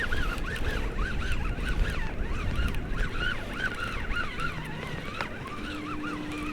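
Fishing reel being wound in against a hooked fish: a rhythmic rising-and-falling whine, about three a second, over wind and water noise.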